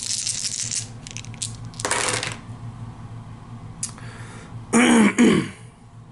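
Five game dice rattling as they are rolled onto a board game's board, clattering to rest about a second in with a few last clicks. Near the end comes a brief wordless murmur from a person.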